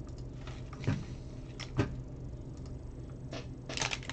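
Plastic LEGO pieces clicking and knocking as they are handled and fitted together: two sharp clicks about a second apart, then a run of small clicks and rattles near the end.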